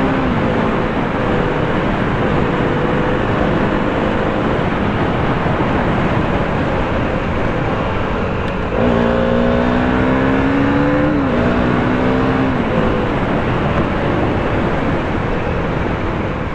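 Wind noise on a riding motorcycle's microphone, with the KTM Duke 390's single-cylinder engine underneath. About halfway through, the engine pitch climbs as the bike accelerates, drops at a gear change a couple of seconds later, then sinks back under the wind.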